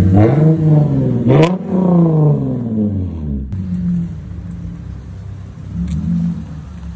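Lexus IS 250's 2.5-litre V6 revving as the car backs out: the engine pitch climbs over the first second and a half, sweeps up again and falls away by about three and a half seconds in, then settles to a lower, steady running with a brief rise near the end.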